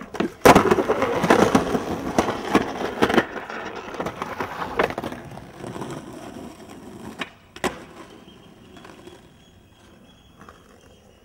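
Skateboard grinding along a concrete curb edge, the trucks scraping with several sharp clacks, then the wheels rolling over paving and fading away, with a couple of single clacks around seven seconds in.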